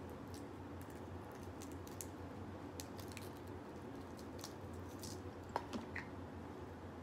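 Snow crab leg shell being cracked and picked apart by hand, giving scattered soft clicks and crackles, with one sharper crack about five and a half seconds in.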